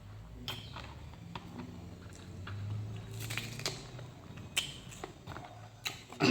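Close-up eating sounds: someone biting into and chewing mango slices, with irregular wet clicks and crackles.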